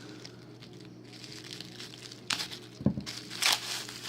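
Sealed plastic packaging crinkling and tearing as it is cut and pulled open with a knife. It is quiet for the first couple of seconds, then a few sharp rustles come, the loudest near the end.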